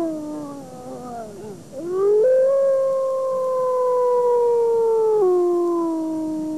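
Gray wolf howling. A falling howl trails off in the first second and a half. Then a second long howl rises, holds level, and steps down to a lower pitch about five seconds in.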